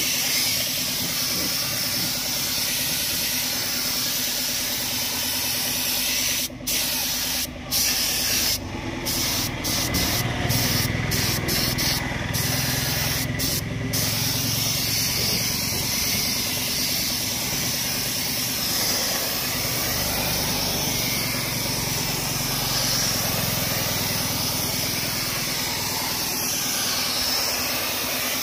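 Compressed-air paint spray gun hissing steadily as it sprays paint. The hiss breaks off briefly several times near the middle.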